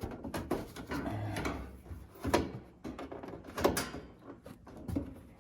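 Plastic cover panel of an ice maker being pried and pulled at by hand: scraping and rattling, then three sharp clicks or knocks about a second and a half apart.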